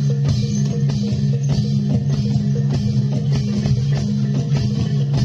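Live accompaniment music for a Reog performance: frequent drum and percussion strokes over two steady, held low notes.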